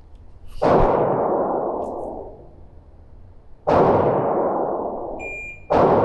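Handgun shots on an indoor range: three sharp reports, about half a second in, about three and a half seconds in and right at the end, each ringing on for a second or two in the range. A shot timer's short electronic beep sounds just before the last shot.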